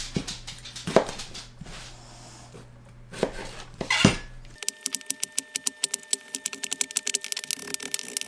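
Kitchen knife cutting a red onion on a cutting board: a few separate cuts, then about halfway a fast, even run of chopping clicks.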